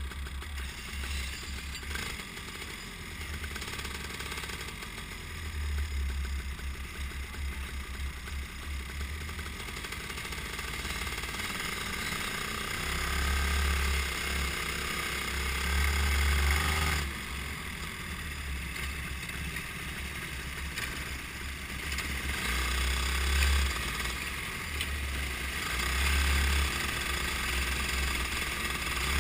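Go-kart engine running under throttle, growing louder through the middle and dropping off abruptly a little past halfway, then building again, with other karts' engines around it.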